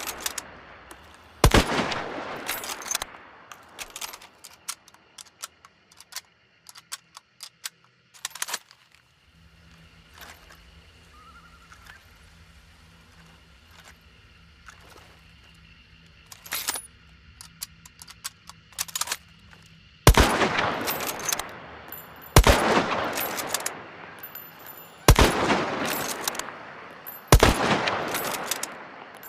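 Mosin-Nagant M1891 bolt-action rifle firing: one shot about a second and a half in, then metallic clicks and knocks of the rifle being worked, then four more shots about two and a half seconds apart near the end, each ringing out with a long echo.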